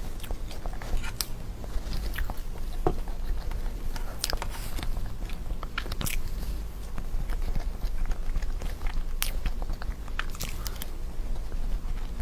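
A person biting and chewing chocolate desserts, with scattered short clicks of bites and chewing over a low steady hum.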